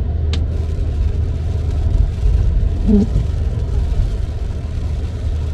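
Car driving on a wet road in the rain: steady low tyre and road rumble under an even hiss. The stiff windshield wiper blade drags across the glass with a short groan about three seconds in, part of a sweep that repeats roughly every three seconds.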